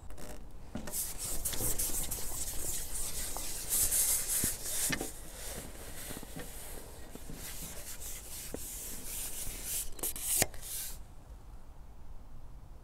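A carbon fishing pole rubbing and scraping as it is slid across the angler's lap and seatbox, with a few light knocks. The scraping stops abruptly near the end.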